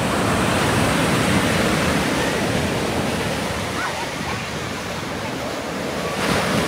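Ocean waves breaking and surf washing up a sandy beach: a steady rush of water that eases briefly and swells again near the end.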